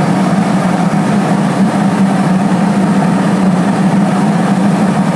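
Steady cabin noise of an airliner in flight, heard from inside the passenger cabin: engine and airflow noise with a strong, even low hum.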